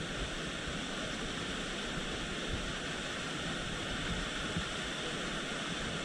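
Steady rush of a waterfall: an even hiss of falling, flowing water with no breaks.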